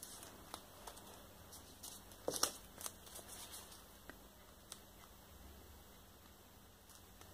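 Faint crinkling and a few light clicks from gloved hands handling wiping materials at an inked printing plate, with a short burst of crackles about two and a half seconds in.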